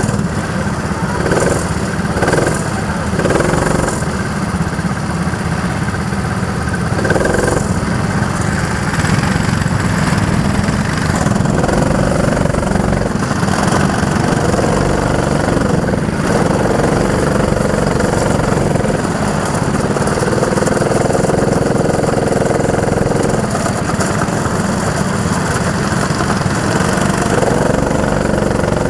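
Go-kart engines running in a steady, continuous drone.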